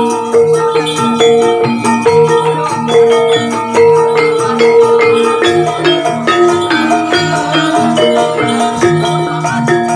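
Javanese gamelan music for a kuda lumping dance: metallophones strike a steady run of ringing pitched notes in an even rhythm over rattling percussion.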